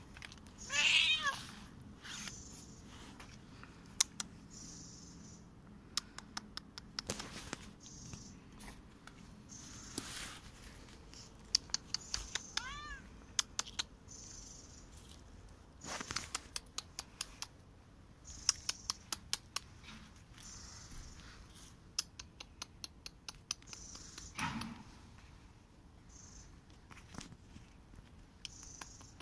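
Korat cat meowing: one loud cry about a second in and a weaker one near the end, with scattered sharp clicks and rustles as the cat moves.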